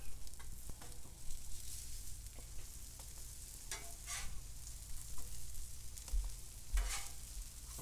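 Veggie patties sizzling on a hot Blackstone flat-top griddle, while a metal spatula scrapes across the steel plate a few times as they are flipped.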